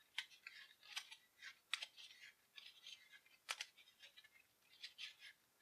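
Small game cards being slid off a stack one by one and handled between the hands: faint, irregular light clicks and soft flicks of card against card.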